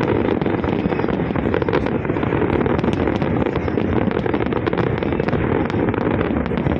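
Fireworks display going off: many sharp cracks and pops over a continuous dense rumble.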